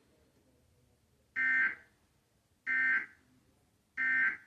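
Emergency Alert System end-of-message signal: three short bursts of warbling two-tone digital data, evenly spaced about a second and a half apart, marking the end of the severe thunderstorm warning broadcast.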